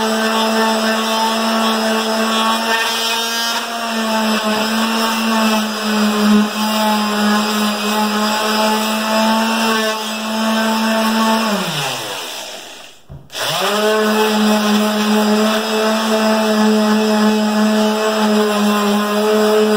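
Electric palm sander (orbital finishing sander) running steadily as it sands a small piece of wood. About twelve seconds in, its motor winds down to a stop, then starts again and spins straight back up to speed.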